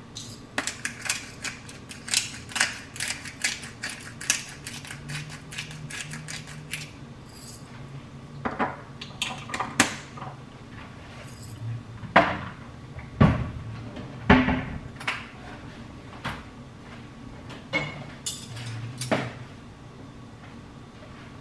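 Pepper mill grinding black pepper: a quick run of dry crackling clicks for several seconds. Then a few separate sharp clinks and knocks as the glass mill is set down and a fork and spoon tap against a ceramic bowl.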